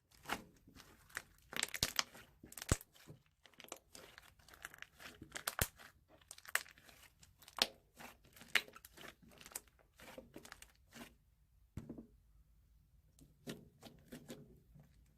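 Hands working slime, making irregular sticky crackles and popping clicks, with a quieter spell about two-thirds of the way through.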